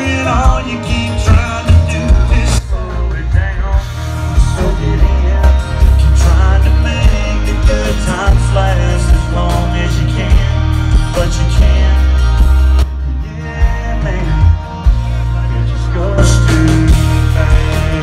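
Live country-rock band playing loud through a concert PA, heard from the audience: electric and acoustic guitars, drums and a heavy bass, with the singer's voice at times.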